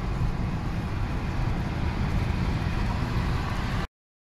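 Road noise inside a moving car's cabin: a steady low rumble with tyre and wind hiss, cutting off abruptly near the end.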